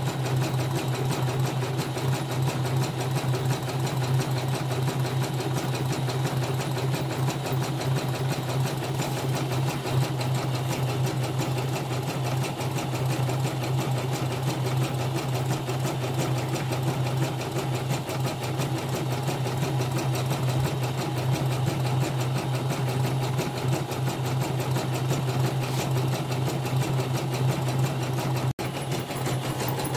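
Elnoss portable embroidery machine stitching a design: a fast, even run of needle strokes over a steady low hum.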